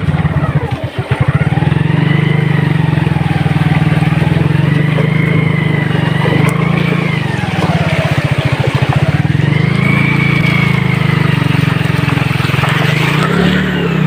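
Motorbike engine running as the bike rides through shallow water on a rough dirt track. Its note rises and falls with the throttle, with a brief dip about a second in.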